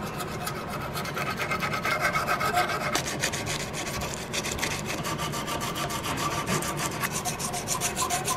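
Sandpaper, backed by a file, rubbed back and forth over an iron trigger guard held in a vise. It makes a rhythmic scratching of quick, even strokes that smooths file marks out of the metal.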